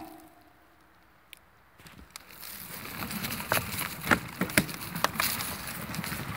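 Bicycle riding off-road over a leafy forest path: after a quiet couple of seconds, tyres crunching over the ground and the bike rattling with sharp knocks over bumps, growing steadily louder.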